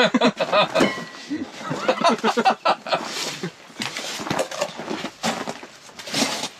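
Two men laughing, with scattered knocks and clicks of handling.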